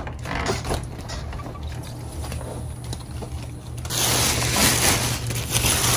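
Faint handling knocks at first, then black plastic bags rustling and crinkling loudly from about four seconds in as the bags holding raw meat are pulled open.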